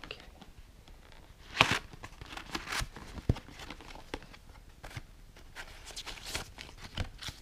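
Hands opening a flapped cardboard box: card rustling and scraping, with scattered small taps and clicks. The loudest rustle comes about a second and a half in.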